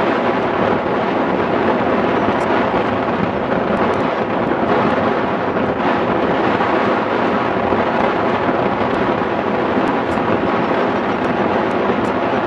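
Steady rush of airflow over the microphone of a camera mounted on a hang glider's wing in flight, a constant wind roar with no engine.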